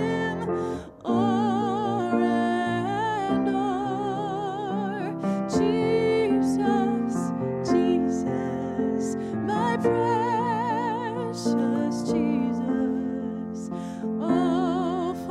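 A woman singing a slow hymn with wide vibrato, accompanied by a grand piano, with a brief break for breath about a second in.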